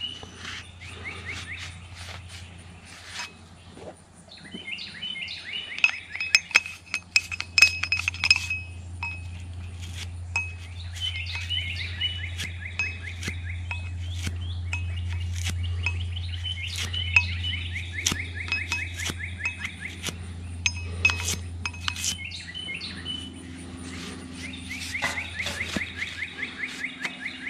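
Scattered light metallic clicks and clinks from the parts of a disassembled Winchester 9422 lever-action .22 rifle being handled while its receiver is wiped out with a rag. Birds trill repeatedly in the background.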